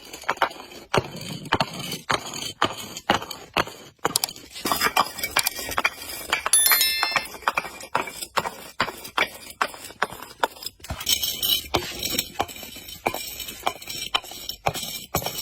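Crunchy objects and glass bottles being crushed: a rapid, irregular run of sharp cracks and crunches, with brief clinks of glass ringing twice.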